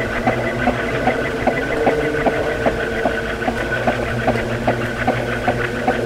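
Ceiling fan running: a steady motor hum with a regular tick about two or three times a second.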